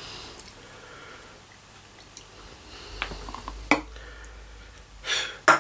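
Carling lager poured from a can into a glass: a quiet pour with a few sharp clinks, and a louder short rush ending in a sharp knock near the end.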